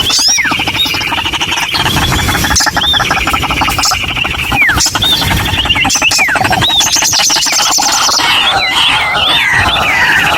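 White-breasted waterhen (ruak-ruak) calling over and over: loud squawking notes, each arching and falling in pitch, about one a second above a fast rattling chatter, with the calls crowding together near the end.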